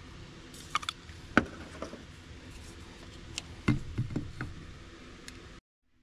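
Handling clicks and knocks from a Sea Foam aerosol can being fitted to its spray tube and set down: scattered sharp taps, with a cluster of several a little past the middle. The sound cuts off abruptly near the end.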